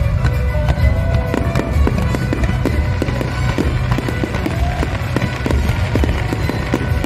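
Fireworks going off in rapid, sharp bangs and crackles, starting about a second in, over loud show music with a heavy bass.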